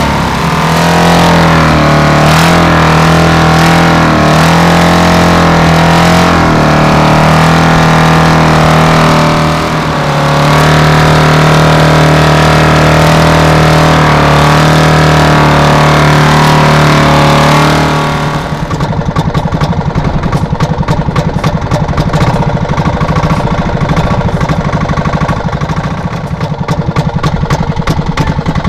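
Small wooden boat's engine running steadily under way. About eighteen seconds in, the sound turns rougher, with a rapid pulsing.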